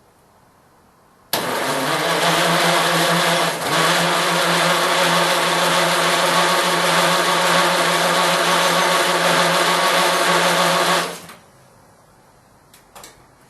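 A small motor runs steadily at one speed for about ten seconds, starting and stopping abruptly.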